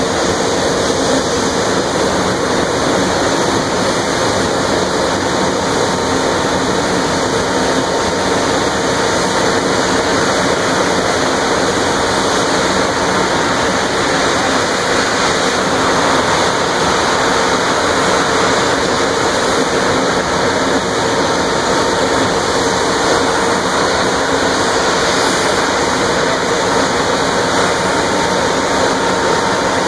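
Steady, loud rushing noise of an industrial fire venting from the top of a distillation column at a sugarcane ethanol mill, with a faint steady hum underneath.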